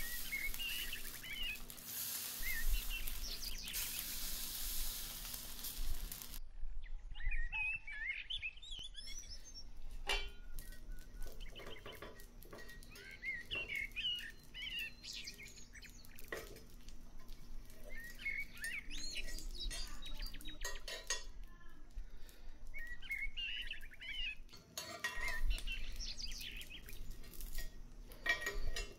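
Rice-flour batter sizzling in a hot cast-iron chitoi pitha pan, the hiss cutting off suddenly about six seconds in. After that a metal spatula scrapes and clinks against the pan now and then as the cakes are loosened and lifted. Birds chirp in the background.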